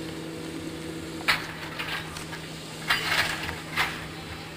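O&K 0-8-0T narrow-gauge steam tank locomotive working a mud train: a few sharp, unevenly spaced chuffs of exhaust begin about a second in, over a steady low hum.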